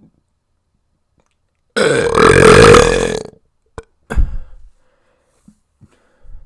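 A person burping loudly: one long burp of about a second and a half, followed by a click and a short, quieter sound.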